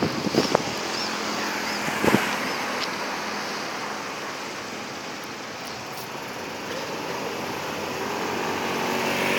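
Roadside traffic noise with vehicle engines running, a few sharp knocks in the first two seconds, and the sound swelling near the end as a vehicle comes closer.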